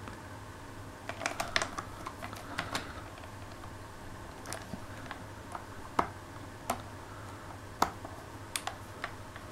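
Small, irregular plastic clicks and taps from multimeter probes and leads being handled and pressed onto the terminals of an electric shower's solenoid valve: a quick cluster of clicks in the first few seconds, then single clicks about once a second.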